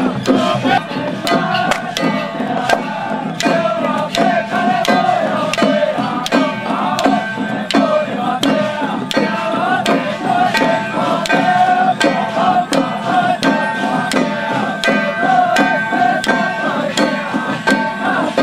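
Music: a wavering melody over a steady beat of sharp clacks, about two a second.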